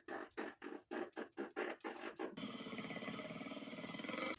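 An animal calling: a quick run of short repeated chirps, about five a second, then one long harsh call from about halfway through.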